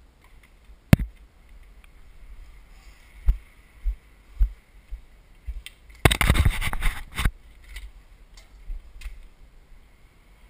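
Handling noises: a few sharp knocks and thumps, then about a second of loud scraping rustle just past the middle.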